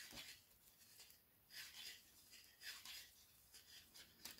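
Faint, soft rustle of yarn and knitting needles as stitches are knitted, a few brief scratchy swishes about a second apart.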